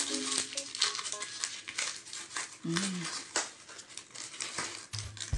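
Close, dry crinkling and crackling: a dense run of small crackles, with a short hummed "mm" about halfway through.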